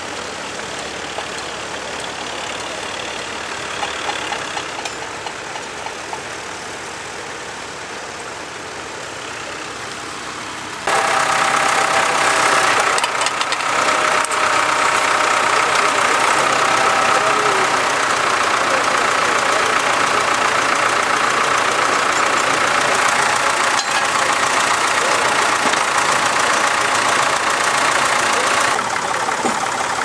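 Tractor diesel engines running while ploughing. First a vintage tractor pulls a mounted plough. After a sudden cut about eleven seconds in, a louder, closer tractor works a reversible plough, running steadily. Near the end the engine sound drops slightly.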